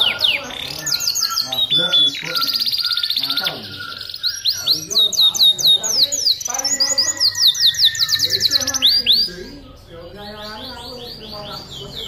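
Domestic canary singing in full voice: a long run of fast trills and rapid rising-and-falling whistled sweeps that change pace from phrase to phrase. The song goes quieter for a moment near the end, then the trills start again.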